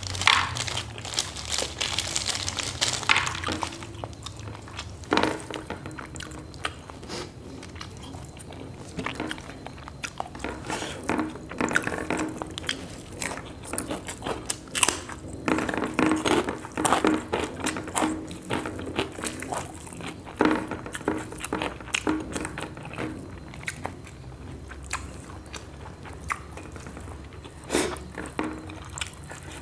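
A person chewing and crunching food eaten by hand, close to a clip-on microphone: crisp bites of fried battered eggplant and crackers, wet smacks and many small clicks. A plastic bag rustles briefly at the start.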